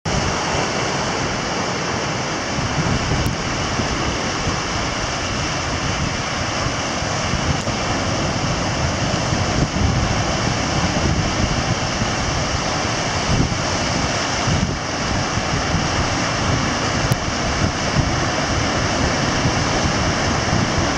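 Ocean surf breaking on a coral reef: a steady rushing wash of waves, with wind buffeting the microphone.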